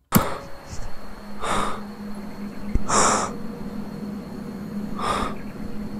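A person breathing heavily: three loud, noisy breaths, roughly one every two seconds, over a faint steady hum.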